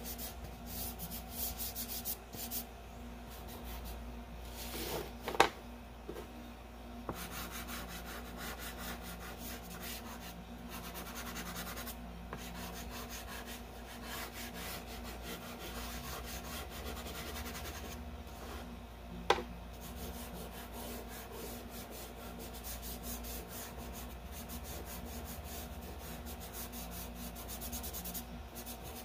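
Soft chalk pastel scraping across paper and fingertips rubbing the pastel into it: a steady scratchy rubbing made of many short strokes. Two sharp knocks come, one about five seconds in and one about nineteen seconds in.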